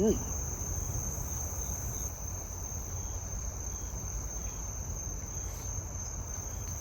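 Steady, high-pitched chorus of crickets over a steady low rumble.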